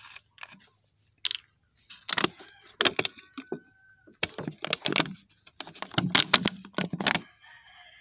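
Plastic bottles being handled, with a run of crackling and clunking, then a softer trickle as liquid starts to pour from a large handled plastic jug into a small plastic bottle near the end.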